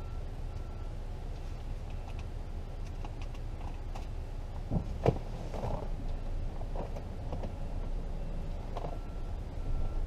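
Ford Edge V6 engine running at low revs, a steady low rumble heard from inside the cabin, with two short clicks about five seconds in.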